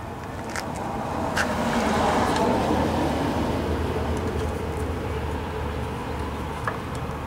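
A road vehicle passing, its noise swelling over the first two seconds and then fading slowly, with a low hum under it. A few faint clicks from the screwdriver working at the carburetor's plastic slow jet.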